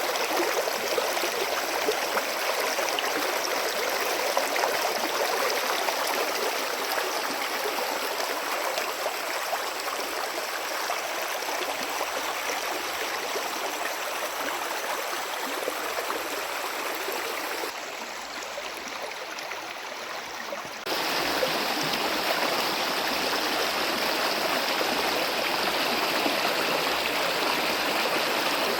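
Steady rush of flowing stream water, an even wash of sound. About two-thirds of the way through it turns quieter and duller for about three seconds, then comes back at full level.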